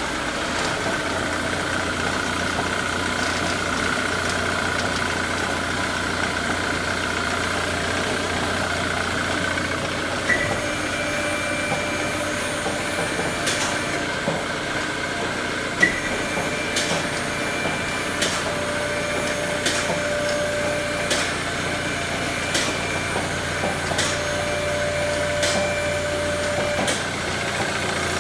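Ford Mondeo running steadily, with sharp clicking rattles coming about once a second through the second half.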